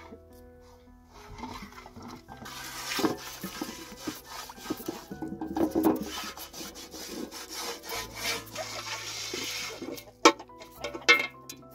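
Wet cloth scrubbing the inside of a large metal pan in repeated rubbing strokes from about two seconds in, with a few sharp knocks near the end. Soft background music plays underneath.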